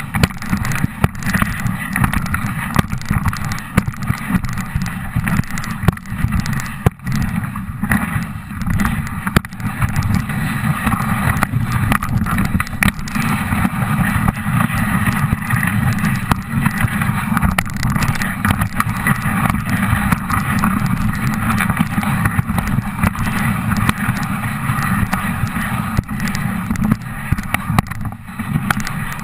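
Dog sled gliding over a snow trail: a steady scraping hiss of the runners on the snow over a low rumble, with frequent small knocks as the sled jolts along.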